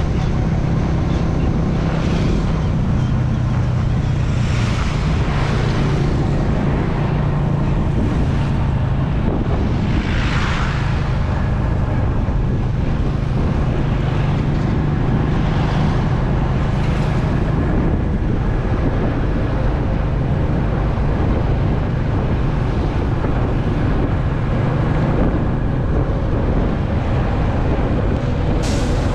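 Motorbike riding through city streets: the engine runs steadily under heavy wind buffeting on the microphone. Swells of rushing noise come and go, the strongest about ten seconds in, and a short sharp high sound comes near the end.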